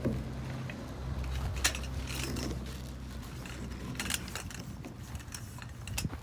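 Camping gear being assembled: a few sharp clicks and light metallic rattles of parts being handled and snapped together, over a low steady hum.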